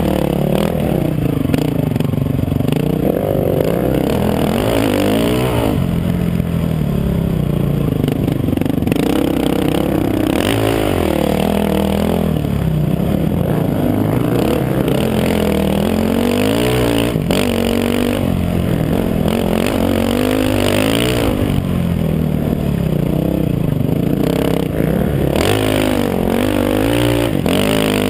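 Dirt bike engine ridden hard on a trail, its pitch rising and falling over and over as the throttle opens and closes.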